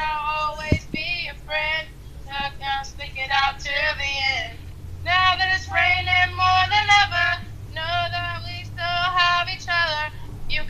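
A woman singing unaccompanied in a high voice, in short phrases with a brief pause about halfway through.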